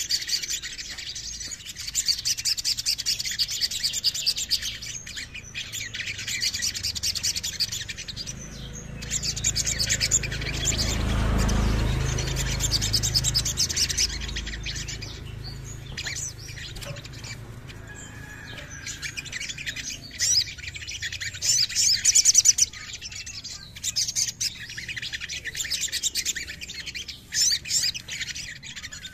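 Male olive-backed sunbird singing: bursts of fast, high-pitched chattering trills separated by short pauses. A low rumble swells and fades about midway.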